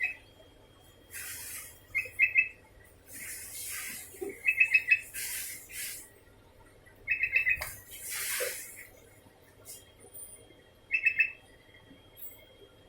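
Sooty-headed bulbul calling over and over: short bursts of three or four quick, bright notes every two to four seconds. Between the bursts come several brief hissing rustles.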